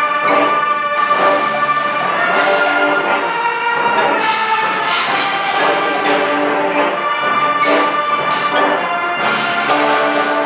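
Junior-high concert band playing together, brass and woodwinds holding full chords, with several short bright crashes high up partway through.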